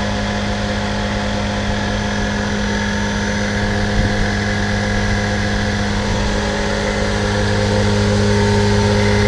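Tri-lobe rotary blower of a pneumatic grain conveyor, driven by an electric motor on a variable-speed drive, running empty with no grain in the system. It makes a steady machine hum with several held tones and grows a little louder near the end.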